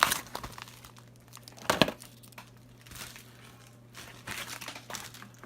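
Packaging being crumpled and crinkled by hand, in irregular crackles with a sharp loud crackle about two seconds in.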